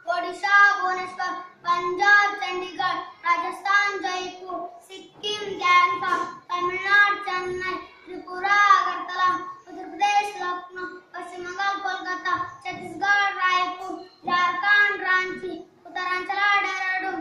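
A boy singing solo and unaccompanied, in short phrases of about a second with brief breaths between.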